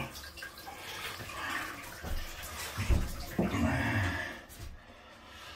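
Water running from the tap into an enamel bath, testing a waste pipe connection underneath that has just been tightened against a leak. A low thump comes about three seconds in, and the running water stops near the end.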